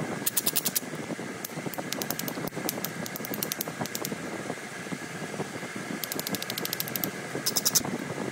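A copper-tipped flintknapping tool scraped quickly along the edge of a Coshocton flint preform, giving short bursts of rapid rasping clicks several times over; the strokes abrade the edge to prepare it for pressure flaking. A steady faint hum runs underneath.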